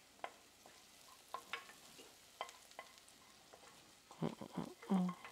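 Wooden spoon stirring in a frying pan of black beans, with scattered light clicks and knocks of the spoon on the pan. Near the end, onion is scraped from a smaller pan into the beans, and the knocks come quicker.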